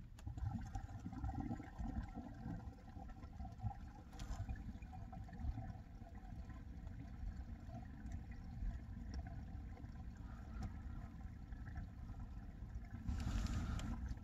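Faint low rush of water draining through a drain pipe as a bucket is emptied, with a brief louder hiss near the end. The flow sounds hollow, like an open pipe, which the listener takes for a possible break in the pipe.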